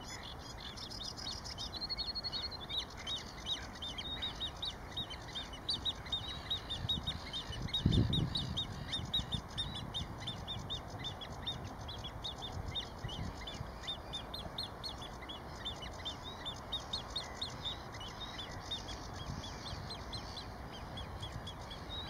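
Great crested grebe chick's high piping begging whistles, short calls repeated rapidly at about four a second, with a brief low thump about eight seconds in.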